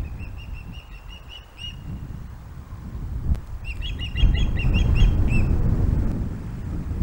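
Ospreys calling with two runs of short, sharp, repeated high chirps, the second about three and a half seconds in. A low rumble runs underneath and swells in the middle.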